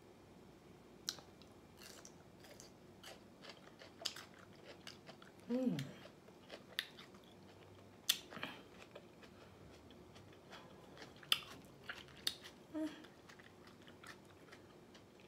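A person chewing and biting raw orange bell pepper strips dipped in ranch dressing, with short sharp bite and chew sounds scattered irregularly, and a brief falling hum about five and a half seconds in.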